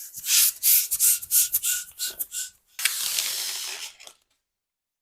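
Rubber balloon squeaking as it is stretched and twisted by hand, about ten quick rubbing strokes with a faint squeaky tone. A steady hiss follows for a bit more than a second.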